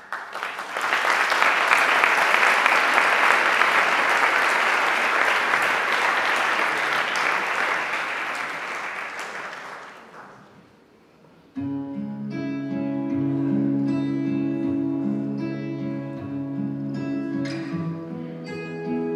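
Audience applause for about ten seconds, dying away. A moment later a guitar intro begins, playing slow, distinct notes.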